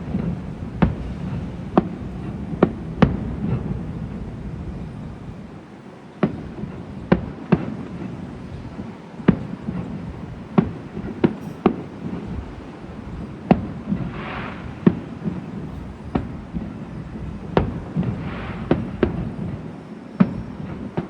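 Fireworks going off: a string of sharp bangs at uneven intervals over a low rumble, with two longer hissing bursts past the middle.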